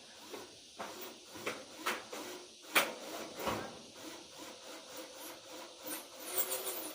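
Handling noise from the cordless drill and its parts: irregular clicks, taps and rubbing, with one sharper knock about three seconds in.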